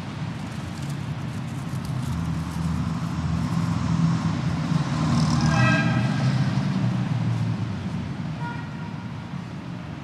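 City street traffic: a motor vehicle's engine swells as it passes close by, peaking about halfway through and fading. There is a short car-horn toot near the middle and a fainter one near the end.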